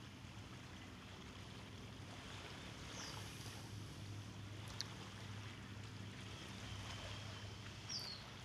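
Quiet seaside ambience: a faint wash of calm water with a low steady hum under it. Two short high chirps come about three seconds in and near the end.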